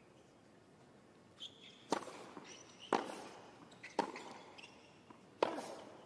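Tennis ball strikes and bounces on a hard court: four sharp pops about a second apart as the ball is bounced, served and returned.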